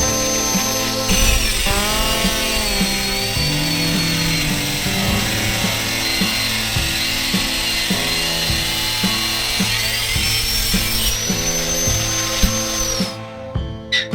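Electric power tool running over background music, its motor whine dropping in pitch as it bites into work, then rising again as the load comes off, and stopping near the end.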